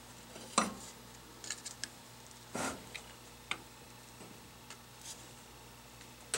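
Small screwdriver prying and scraping at the shaft seal of a Hydro-Gear hydraulic pump casing: scattered metal clicks and scrapes, the loudest about half a second in and a longer scrape a little after two and a half seconds.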